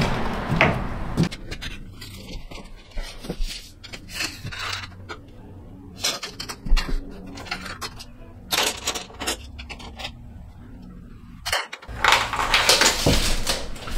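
Scattered light clicks, taps and scrapes from handling a steel tape measure against the truck box's front wall, with a few footsteps on the box floor.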